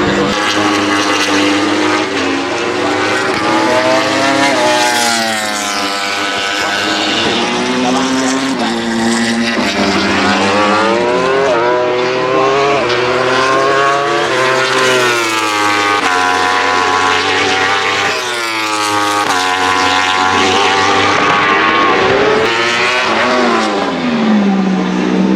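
Yamaha YZF-R1 World Superbike racing motorcycles, parallel four-cylinder engines through Akrapovic exhausts, revving hard as they pass. The pitch climbs on acceleration and drops on braking and downshifts, over and over, with more than one bike often heard at once.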